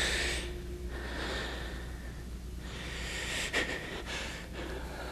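A person's slow, breathy exhalations, three of them, each swelling and fading like a sigh, with a sharp click about three and a half seconds in, over a low hum.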